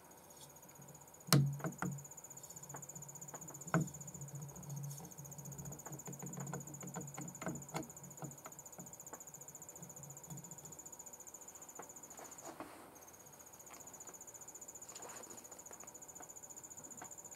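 Differential grasshopper chewing a lettuce leaf: irregular crisp clicks and crunches for the first ten seconds or so, loudest about a second in and again near four seconds. A steady high-pitched trill runs underneath, breaking off briefly late on.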